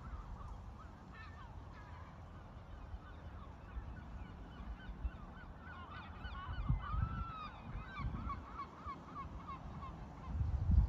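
Birds calling in quick series of short rising-and-falling notes, over wind rumbling on the microphone that gusts near the end.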